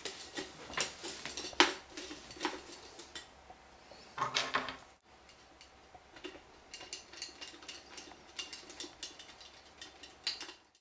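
Irregular small metal clicks and clinks from a speed skating blade's mount and bolts being worked by hand against the boot sole, with a louder cluster about four seconds in and lighter clicks after.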